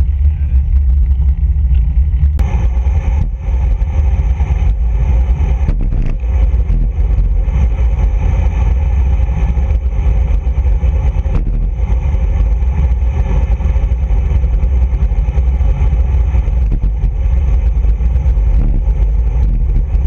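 Heavy wind buffeting on a bicycle-mounted camera's microphone during a fast road-bike descent: a loud, steady, low rumble, with a thin high whine joining about two seconds in.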